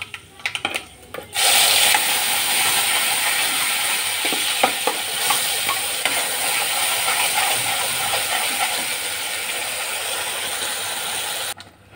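Wet ground tomato, onion and garlic paste sizzling hard in hot mustard oil in a steel kadhai, a loud steady hiss with steam, and a few clicks of a steel spoon against the pan as it is stirred. The sizzle starts suddenly about a second in and cuts off just before the end.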